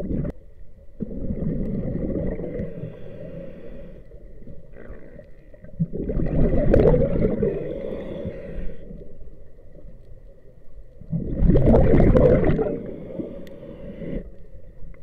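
Scuba diver's exhaled breath bubbling out of the regulator underwater, three bursts a few seconds long about five seconds apart, with quieter inhalation gaps between.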